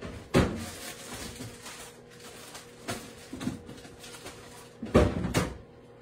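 A few sharp knocks and clunks, mostly in pairs, typical of kitchen handling such as cupboard doors or drawers.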